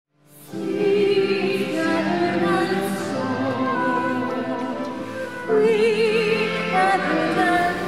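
Small church choir singing with vibrato, accompanied by a digital piano. The music fades in at the start and the singing grows louder about five and a half seconds in.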